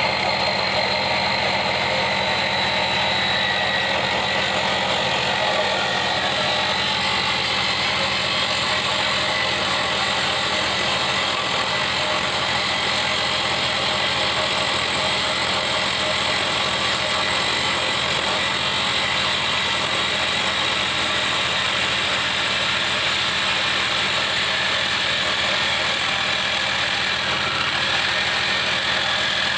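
Electric arc welding: a steady crackling sizzle over a low electrical hum.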